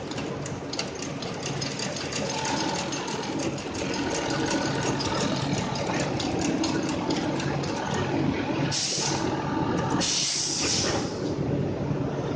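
Shoe sole-stitching machine running, its needle mechanism clicking in a fast even rhythm of about five to six stitches a second over a motor hum. Two short hissing bursts come about three-quarters of the way through.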